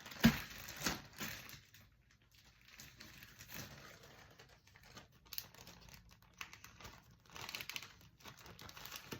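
Intermittent crinkling and rustling handling noise, with two sharper crackles in the first second and a denser patch of crinkling near the end.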